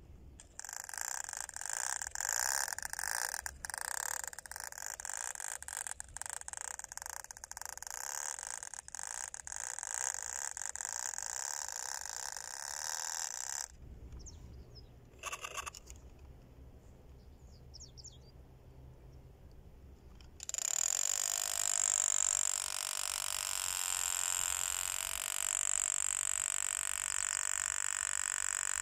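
A small toy outboard motor on a model boat runs with a high whine, with rapid clicking and rattling over it. It drops out about halfway through, leaving only a low rumble for several seconds, then comes back as a steady high whine.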